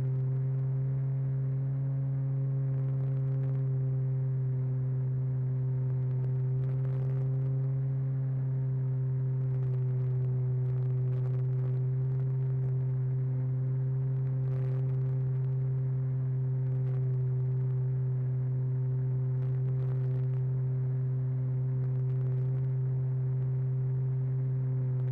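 Model aircraft's motor and propeller running at a steady cruise, heard from the onboard camera as an unbroken low hum with a few higher tones above it. Faint clicks come every few seconds.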